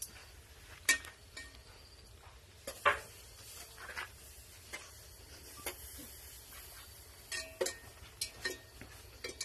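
Scattered clinks and knocks of dishes and utensils: about a dozen short, sharp strikes at irregular intervals, the loudest about a second and three seconds in, over a low steady hum.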